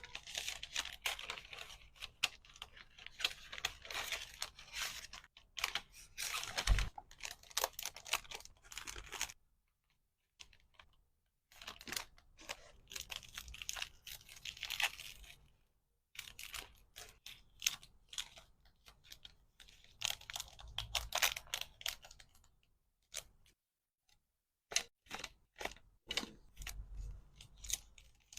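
Close-up rustling, crinkling and tearing of packaging materials being handled, full of small clicks and taps, in several stretches broken by short silences, with one sharper knock about seven seconds in.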